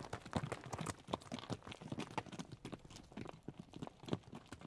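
Hooves of laden pack animals clopping and scraping on a loose stony trail: irregular sharp clicks, a few a second, growing fainter toward the end.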